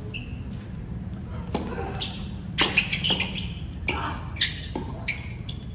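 Tennis rally on a hard court: a ball struck by rackets and bouncing, a series of sharp pops with the loudest pair a little under three seconds in, over a steady low background noise.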